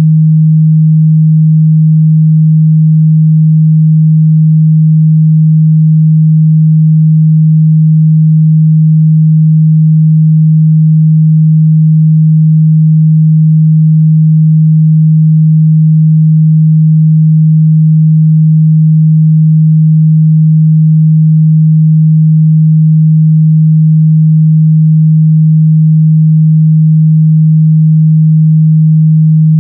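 Steady, loud 157 Hz sine-wave test tone, a single unchanging low hum used to check a speaker's or headphones' mid-bass response.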